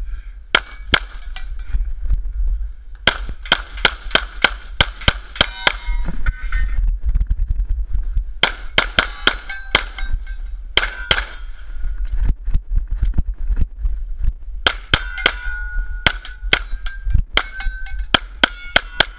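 Salient Arms Glock 34 9mm pistol firing in rapid strings, each shot followed by the clang and ring of a hit steel plate. Four quick strings of shots with short pauses between them.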